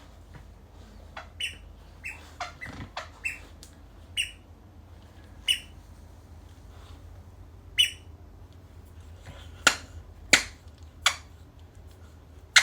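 Squeaky rubber toy squeezed again and again: short, high squeaks, about eight of them in the first eight seconds. These give way to three louder sharp snaps in quick succession about ten seconds in.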